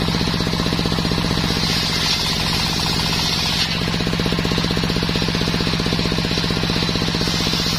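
Stationary engine driving a table circular saw by belt, running with a rapid, steady thudding pulse while the blade rips a sengon plank with a high cutting whine. About halfway through the cutting whine eases as the plank clears the blade and the blade spins on.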